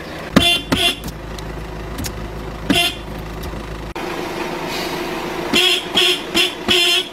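Car horn honking in short toots heard from inside the car: two near the start, one more a couple of seconds later, then four quick toots in a row near the end.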